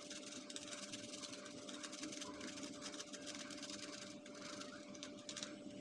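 A garlic clove rubbed quickly over a fine hand grater: faint, rapid scraping, over a faint steady hum.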